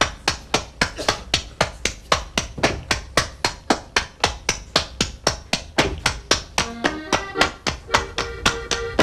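Schuhplattler dancing: hands slapping leather shorts, thighs and shoe soles and clapping in a fast, even rhythm, about four slaps a second. About seven seconds in, held instrumental notes join the slapping.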